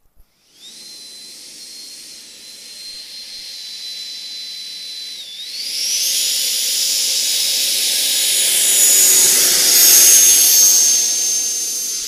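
Radio-controlled L-39 model jet's engine whining with a rushing hiss on its takeoff run. About five seconds in, the whine dips briefly, then climbs sharply in pitch and gets much louder as the throttle opens. It keeps getting louder as the jet rolls closer.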